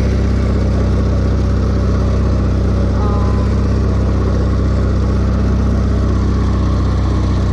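A small engine running steadily at an even speed, giving a constant low hum.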